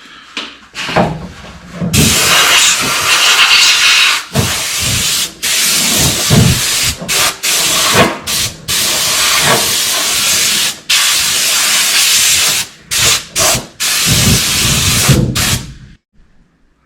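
Compressed-air blow gun hissing loudly in long bursts with many brief stops, blowing dust off a car part as surface prep before primer. It starts about two seconds in and cuts off near the end, after a few handling knocks at the start.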